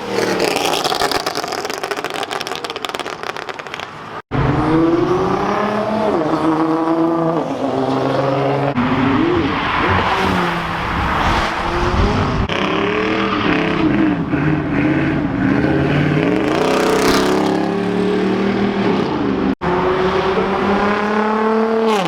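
Performance car engines revving hard and accelerating, the pitch climbing and dropping repeatedly as they rev and shift. The sound breaks off abruptly twice.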